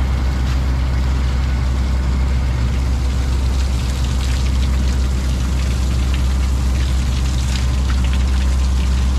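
Fishing boat's engine running with a steady, unbroken low drone, with a few faint light ticks over it.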